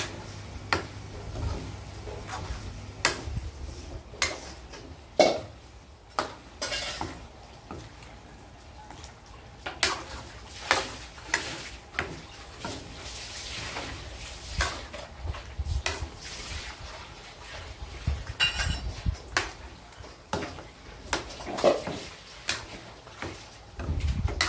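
Metal spatula and ladle scraping and clanking irregularly against a steel wok as cubes of pork belly and skin are stirred, over a light sizzle of the fat starting to render.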